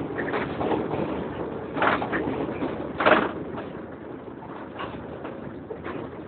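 Inside a Volvo B7TL double-decker bus on the move: the engine cooling fan running over the bus's own noise, with short louder rattles or knocks about two and three seconds in. The noise eases off somewhat after about three and a half seconds.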